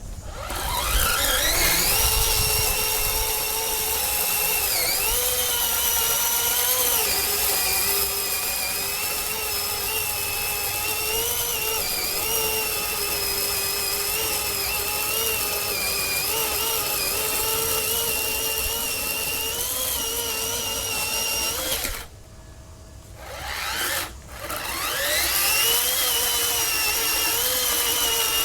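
Greenworks 40V brushless cordless chainsaw's electric motor spinning up with a rising whine, then running steadily with small dips in pitch. It cuts off about 22 seconds in, gives a short blip, then spins up again and runs on.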